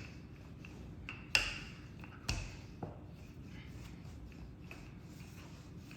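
A few sharp taps and knocks of kitchen utensils being handled on a countertop, the two loudest about a second and a half and two and a quarter seconds in, with a faint steady room hum under them.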